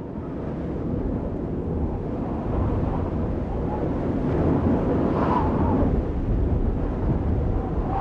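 A steady, low rumbling noise like wind, with faint thin whistling tones about five seconds in.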